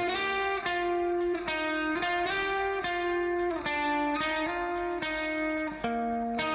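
Background music: a plucked guitar playing a steady run of chords and notes, with a new note struck every half second to a second.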